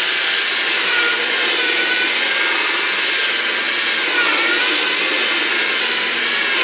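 TACKLIFE PPGJ01A variable-speed polisher running on its lowest speed with a sandpaper disc, grinding a bevel into the edge of a wooden board. A steady motor whine sits over a loud sanding hiss, and the whine wavers a little in pitch.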